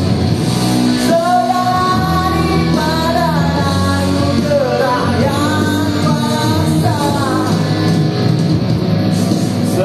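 A man singing through a microphone over backing music, amplified during a sound-system check.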